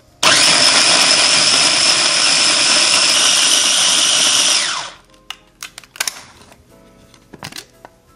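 Mini food processor motor starting up and running at high speed for about four and a half seconds, chopping green onions and emulsifying an oil-and-lemon dressing, then winding down. A few sharp clicks and knocks follow as the plastic lid is handled.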